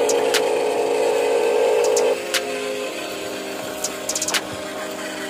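Huina 1573 RC dump truck's electric drive motor and gearbox whining as it crawls over sand. The whine drops noticeably quieter about two seconds in, and a quick run of four or five clicks comes near the end.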